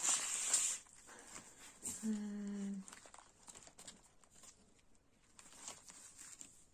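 Rustling and handling noise as a homemade paper-covered binder is slid across a table and opened, loudest in the first second, followed by faint clicks and page rustles. About two seconds in, a woman hums briefly on one steady note.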